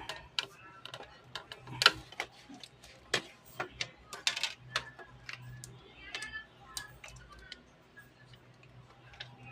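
A run of irregular sharp clicks and taps, loudest a little under two seconds in and again around the middle, over a faint steady low hum.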